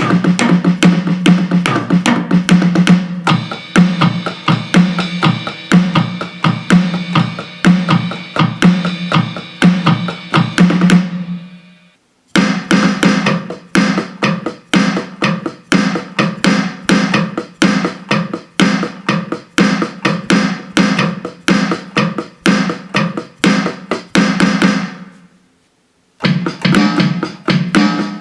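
Donner DED-50T electronic drum kit's preset sounds playing busy drum patterns with kick, snare and cymbals. The playing stops twice for a moment, about twelve seconds in and again near the end, and restarts each time with a different-sounding kit.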